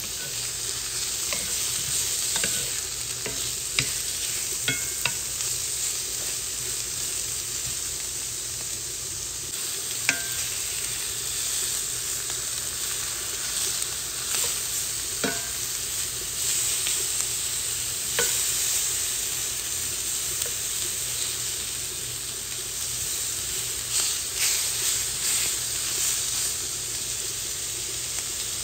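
Sliced steak sizzling in olive oil in a cast-iron skillet, with a steady hiss. A wooden spatula now and then scrapes and knocks against the pan as the pieces are turned.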